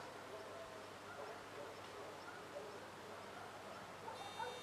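Faint outdoor ambience with scattered short chirps from birds or small animals. A thin, steady high-pitched whine begins near the end.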